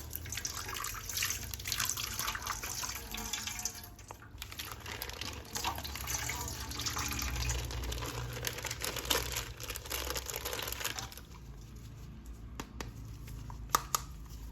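Water running from a tap and splashing in a sink while a toy figure is washed. The splashing eases off about eleven seconds in, and a few small clicks and knocks follow.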